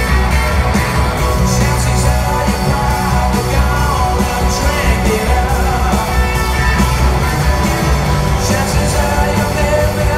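Live rock band playing through an arena PA, drums and electric guitar over a heavy bass, with a voice singing.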